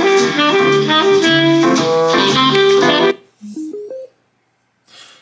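FM radio on a small Bluetooth speaker alarm clock playing instrumental music, which cuts off suddenly about three seconds in. A short run of rising tones follows, then a brief faint click near the end.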